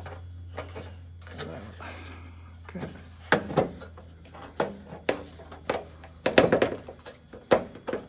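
Green-handled aviation snips cutting tabs into a sheet-metal gutter for a drop outlet: a series of sharp metal snips and clicks, coming thicker in the second half.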